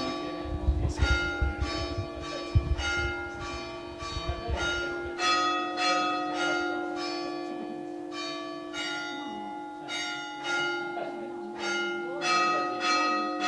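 Bells ringing in a quick, even run of strikes, about two a second, each at a different pitch, over a steady low hum.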